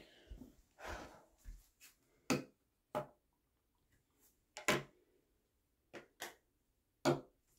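Half a dozen short, sharp knocks and clunks at irregular intervals, with a soft rustle at the start: household things being handled and carried while the phone is moved around.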